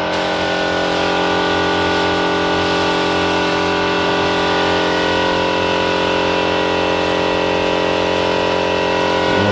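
Compressed-air spray gun hissing steadily as it sprays a clear gloss lacquer coat, over the steady hum of the air compressor feeding it.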